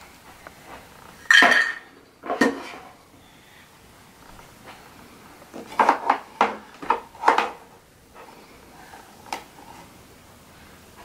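Plastic toy pots, lids and bins knocking and clattering against each other and a tabletop as they are handled: a couple of knocks early, a quick run of knocks around the middle, then one last click.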